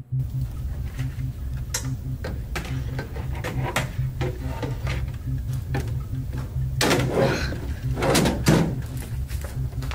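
Keyboard clicks and knocks of desk handling over a low pulsing drone, with two louder scraping rustles about seven and eight and a half seconds in.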